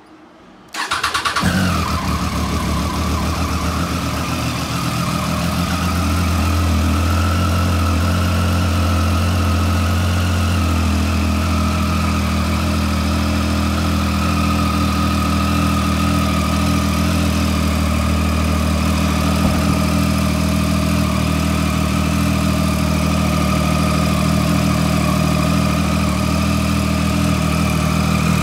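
Triumph Street Triple 675R's inline three-cylinder engine starting up about a second in, then settling into a steady idle.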